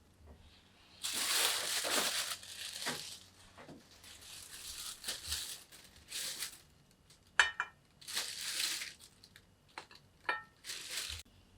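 Crinkling and rustling of plastic or paper food packaging in several bursts of a second or two, with two sharp clinks in between, the second one near the end.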